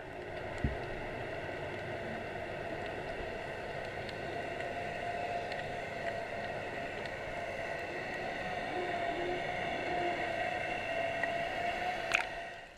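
Steady machinery hum holding several steady tones, slowly getting louder, with a single knock about a second in and a click near the end before it cuts off suddenly.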